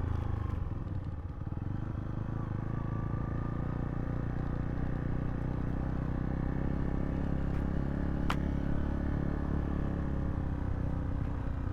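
Zontes T2 350 motorcycle engine running steadily at low revs, with no revving. A single sharp click about eight seconds in.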